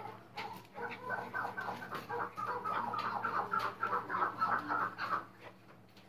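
Chukar partridge calling: a quick run of repeated clucking notes that starts about a second in, goes on for about four seconds and then stops.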